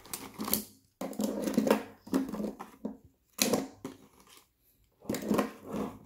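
Crenova plastic magnetic building tiles clattering and clicking together as handfuls are lifted out of their plastic tray and set down on a wooden table, in several short bursts with pauses between.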